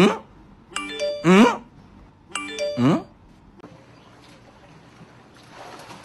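A short musical jingle of stepped chime-like notes ending in a rising swoop, played three times about a second and a half apart, then a quieter stretch.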